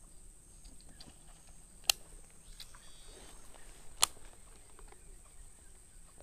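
Two sharp clicks about two seconds apart as a Shimano Exsence DC baitcasting reel is worked by hand, over a faint steady high whine.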